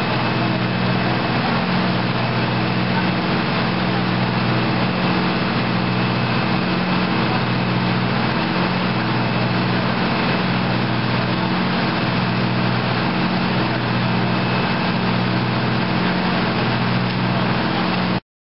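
Fire ladder truck's diesel engine running steadily, with a constant hiss over it. The sound cuts off abruptly near the end.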